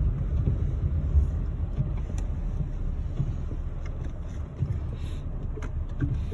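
Mahindra XUV700 SUV running on a snow-covered mountain road: a steady low rumble of engine and road noise, with a few light clicks.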